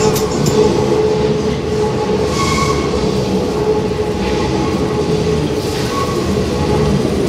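Paris Métro train pulling into the station alongside the platform: a steady rumble of wheels on rails with a held hum and a brief high squeal about two and a half seconds in.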